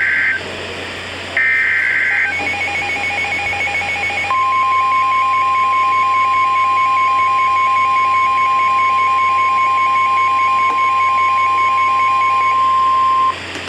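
NOAA Weather Radio Emergency Alert System activation for a new severe thunderstorm warning. It opens with the end of the SAME digital header, short harsh buzzing data bursts. About two seconds in, a weather-radio receiver starts a rapid beeping alert. Then the steady 1050 Hz warning alarm tone, the loudest sound, comes in about four seconds in and cuts off just before the end.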